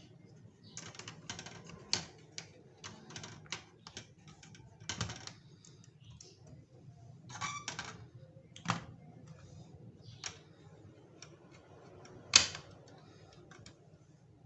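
Hands handling plastic toy train track pieces: irregular light clicks and taps, with one sharper click about twelve seconds in.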